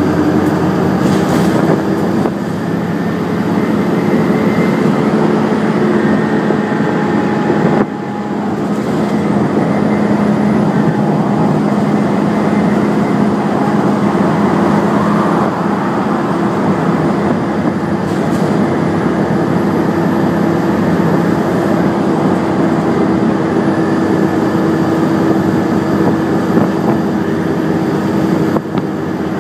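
Cabin noise on the upper deck of an Alexander Dennis Enviro 400 double-decker bus on the move: a steady low engine and drivetrain drone over road noise. The level drops suddenly about eight seconds in, then builds back up.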